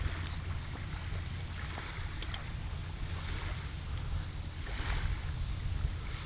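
Wind buffeting the microphone as a steady low rumble, with short scratchy rustles now and then as a toddler scoops and tosses sand by hand.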